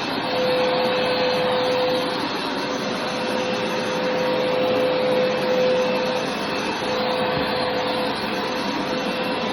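Hoover carpet cleaner running steadily, a continuous motor-and-suction noise with a steady hum that swells and fades every couple of seconds.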